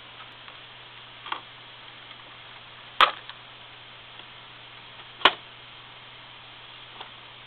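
Toy record player playing a record with no music yet: steady surface hiss over a low motor hum, with sharp clicks from the stylus, two loud ones about three and five seconds in and fainter ones near the start and end.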